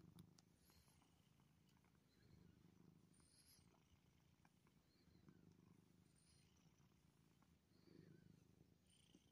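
Domestic grey tabby cat purring faintly and steadily, the purr swelling and easing with each breath.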